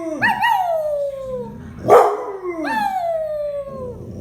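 Pet dog howling: two long howls that each fall in pitch, each starting with a sharp yelp-like onset, the second about two seconds in.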